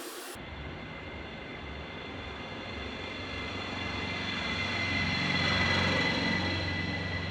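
A motor vehicle's engine running with a steady whine, growing louder to a peak near the end and then fading slightly.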